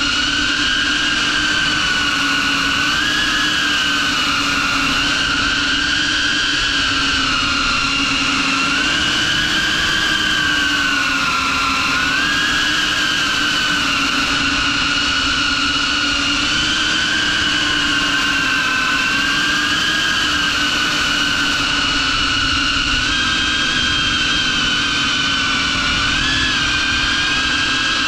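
FPV quadcopter's brushless motors and propellers, on a 6S battery, whining steadily in flight, the pitch rising and falling over and over as the throttle changes.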